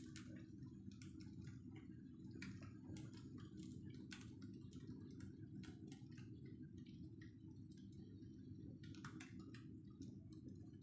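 Firewood burning in a traditional wood-fired stove, crackling faintly with irregular sharp pops and ticks over a steady low rumble.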